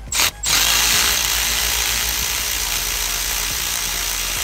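A power tool gives a short burst, then runs steadily, spinning out the alternator's top 13 mm mounting bolt.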